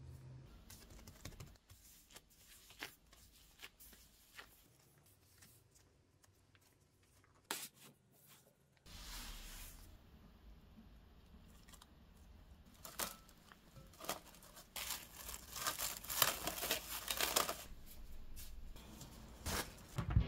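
Plastic cling film being pulled, torn and crinkled in a dense crackly spell in the second half, after scattered small handling clicks and taps. A sharp knock comes near the end.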